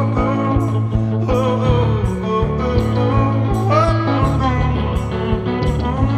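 Live solo electric guitar song: a black electric guitar played through a small amp with held bass notes and a steady pulsing beat of about three strokes a second, and a wavering melody line on top.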